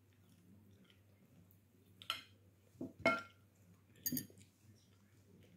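Cutlery clinking against a plate, three or four short ringing knocks, the loudest about three seconds in.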